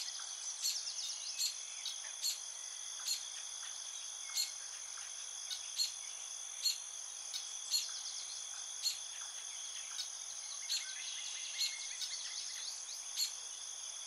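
Insects trilling steadily at a high pitch, with a sharper chirp standing out roughly once a second. A few faint bird twitters come in now and then.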